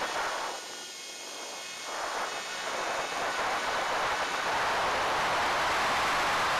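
Rushing airflow noise on the onboard camera's microphone of a ZOHD Drift FPV plane in flight. The noise dips briefly about half a second in as the plane climbs, then builds and holds steady as it dives into a low pass.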